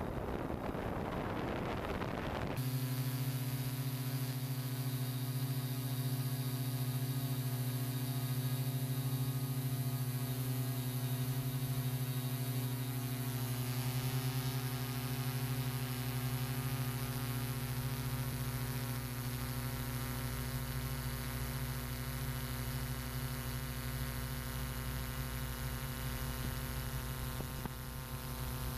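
A broad rushing noise that cuts off about two and a half seconds in, giving way to a steady hum of many even tones from the electric motors and propellers of a hexacopter drone in flight.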